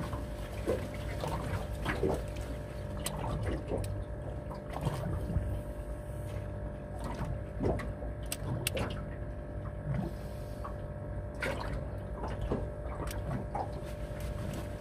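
Water lapping and sloshing against the hull of a small fishing boat, with irregular small clicks and knocks, over a steady low hum.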